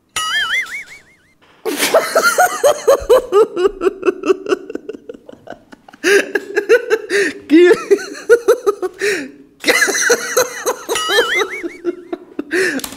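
A man laughing hard in rapid, repeated bursts, breaking off briefly for breath about two-thirds of the way through and then laughing again.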